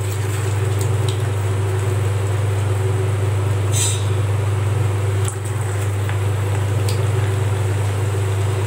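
Aval bonda dough balls dropped into hot cold-pressed groundnut oil, frying with a light sizzle, with a few soft clicks and a brief hiss about four seconds in. Under it runs a steady low hum.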